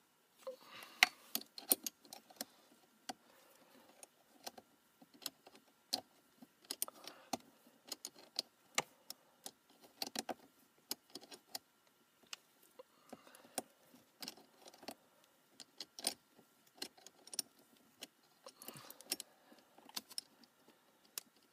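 A 10 mm wrench working a battery terminal nut, making a string of sharp metallic clicks and clinks about one to two a second.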